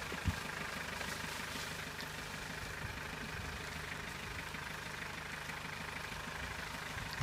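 Engine of an off-road 4x4 jeep running steadily at low revs as it crawls slowly down a bank, with a single short knock about a third of a second in.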